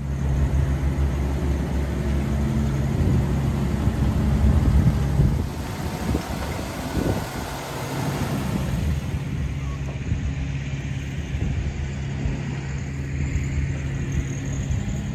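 1979 Chevrolet C10's original 250 cubic-inch inline-six engine running steadily, louder for the first five seconds or so, then settling a little quieter.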